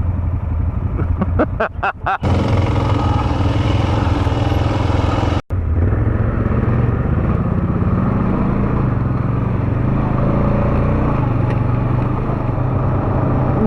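ATV engine running steadily while riding along a trail, a constant low drone.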